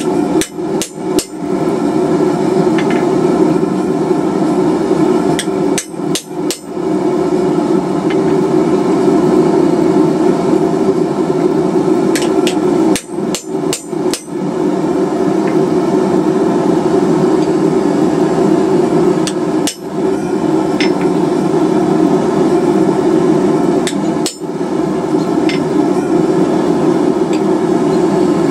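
Blacksmith's hammer striking a chisel to cut scale notches into a steel bar. The blows come in long quick runs, broken by a few short pauses.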